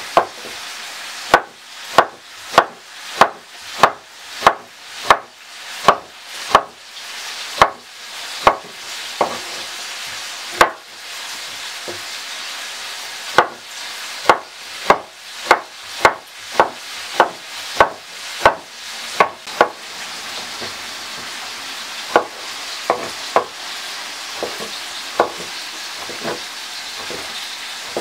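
Chef's knife chopping through cucumber, then tomato, onto a wooden cutting board: sharp knocks of the blade on the board, about one and a half a second, with a pause about ten seconds in and sparser cuts near the end. A steady hiss runs underneath.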